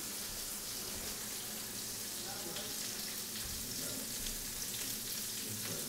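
Steady faint hiss, with faint voices in the background.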